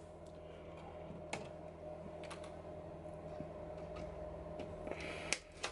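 Faint steady room hum with a few scattered light clicks, the loudest near the end.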